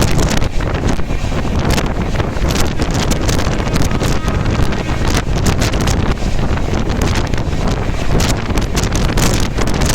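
Strong wind buffeting the microphone: a loud, steady rush with frequent crackles.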